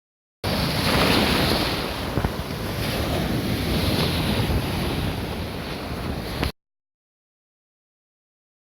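Sea waves surging and washing ashore, with wind rumbling on the microphone. The sound starts abruptly about half a second in and cuts off suddenly about six seconds later, leaving dead silence.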